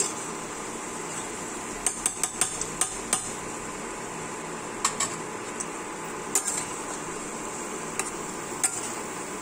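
A spatula stirring thick curry in a steel pan, knocking and clinking against the pan in irregular clusters, over a steady low hiss.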